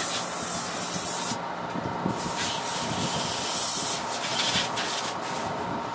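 Airbrush spraying in hissing bursts: one of about a second and a half, then after a short pause a longer run of several seconds with brief breaks, as the brush is sprayed out to clean it between colours.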